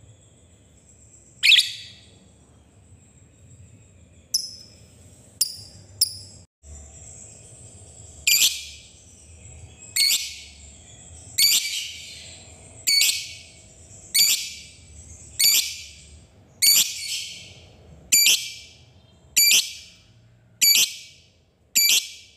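Caged Fischer's lovebird giving loud, shrill, rasping calls. A few come scattered at first, then settle into a regular series of about one every second and a half.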